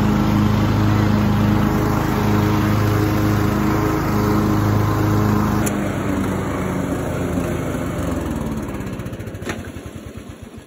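Southern States riding lawn mower's engine running steadily, then a click about halfway through. After the click the engine slows and winds down, its firing pulses spacing out as it dies away.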